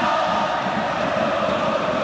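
Packed stand of football supporters chanting together, a steady mass of voices.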